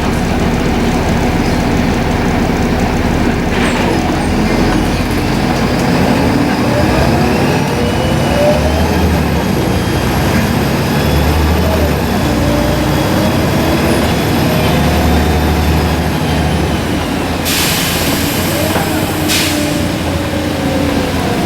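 Volvo B7RLE bus's diesel engine working through its speeds, the turbocharger whistle rising and falling in pitch over the engine note. Two short loud hisses come near the end.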